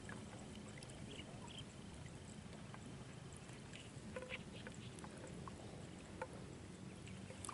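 Faint outdoor ambience at a reservoir shore: a low steady hiss with a few soft scattered clicks and short faint chirps.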